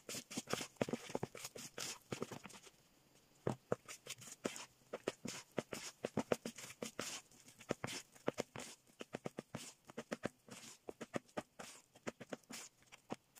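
Metal spoon stirring thick flour-and-curd batter in a plastic bowl: quick, irregular scrapes and knocks against the bowl, with a brief pause about three seconds in.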